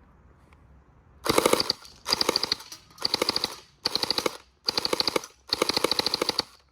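Electric M4-style gel ball blaster firing six short full-auto bursts, its motor-driven gearbox cycling rapidly within each burst.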